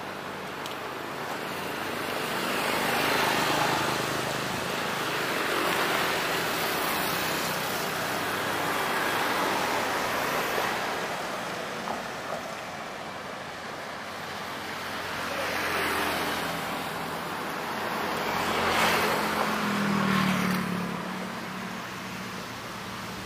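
Road traffic: cars passing one after another, tyre and engine noise swelling and fading about six times, with a low engine hum near the end.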